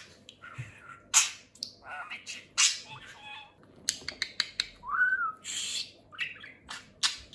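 Budgerigar chattering: a rapid run of short, high, scratchy chirps and clicks, with one brief rising-and-falling whistle about five seconds in.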